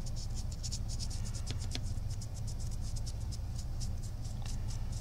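Stiff paintbrush bristles scratching in quick short strokes over a plastic action figure's sculpted surface, dry brushing paint on, several strokes a second. A steady low hum runs underneath.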